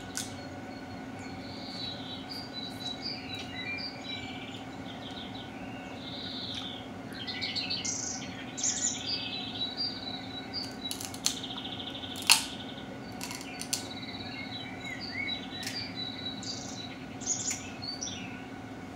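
Many small birds chirping and singing throughout, over a steady low hum. A few sharp clicks stand out, the loudest about twelve seconds in.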